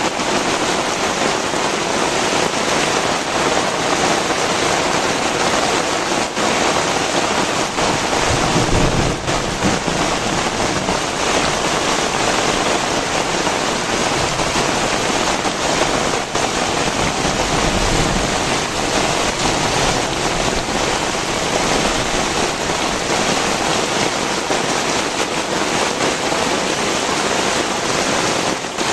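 Heavy rain pouring steadily, a dense even hiss of falling drops, with brief low rumbles about nine and eighteen seconds in.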